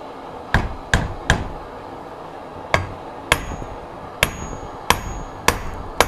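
Hammer blows on metal, about nine sharp strikes at uneven intervals, some with a brief metallic ring: knocking at a seized part on an MZ 150 motorcycle engine to force it off.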